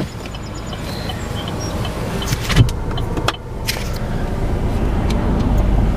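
Car door being worked as someone gets into a Chevrolet Equinox: a few clicks and one loud thump about two and a half seconds in, over steady background noise that slowly grows louder.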